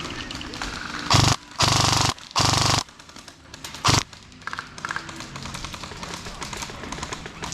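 Airsoft electric rifle firing four short full-auto bursts, each a rapid even buzz of the gearbox cycling that starts and stops sharply; the middle two last about half a second, the last one is brief, about four seconds in.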